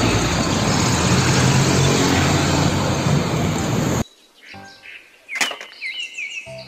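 Heavy diesel cargo truck driving by on a road, with loud, steady engine and tyre noise and a few faint bird chirps. About four seconds in this cuts off abruptly to a much quieter stretch of light clicks and taps, plastic toy trucks being handled, with a few short chirps.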